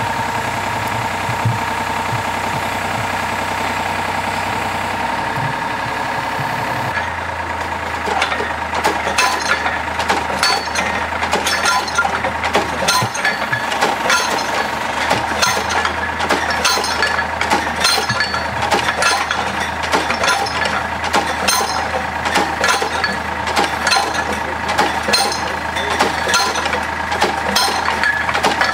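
Engine of a GTB-2000 cable percussive drilling rig running steadily. About seven seconds in, the engine note shifts and a run of metallic clinks and knocks starts, about two a second, as the rig's automatic percussion mechanism works the drilling tool.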